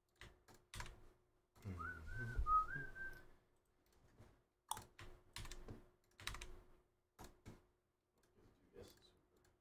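Someone whistling a short phrase of a few notes about two seconds in, among scattered clicks and taps of a computer keyboard.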